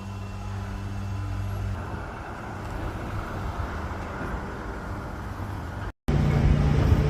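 An engine of site machinery running steadily with a low hum and general construction-site rumble. The hum eases after about two seconds. Near the end a cut brings in a louder, steadier drone.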